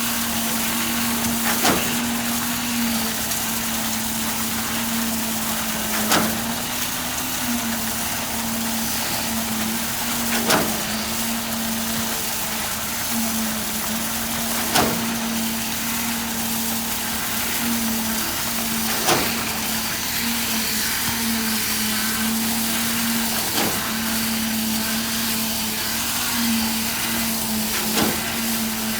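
Heavy construction machinery running steadily with a constant hum, and a sharp click or knock about every four and a half seconds.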